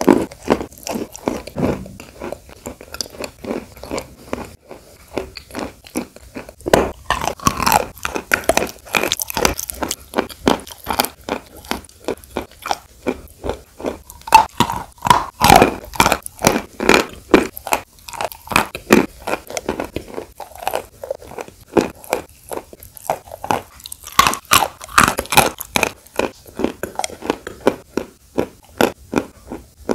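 Close-miked biting and chewing of sawn chalk coated in wet clay paste: a long run of crisp, crackly crunches, several a second.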